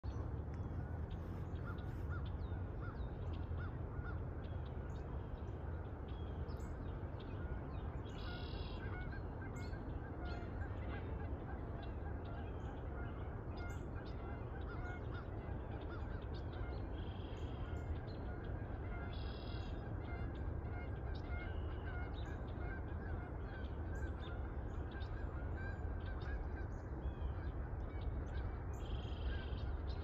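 Geese honking now and then, with small birds chirping, over a steady low rumble.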